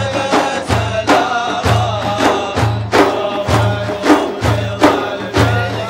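Hand-held frame drums playing a steady rhythm, a deep stroke about once a second with lighter, sharper strokes and jingles between. Voices hold a drawn-out sung tone over the drumming.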